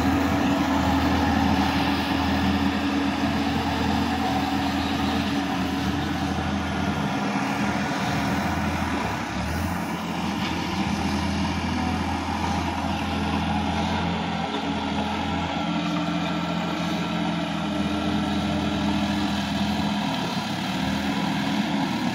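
Tractor diesel engine running steadily while working a flooded paddy field.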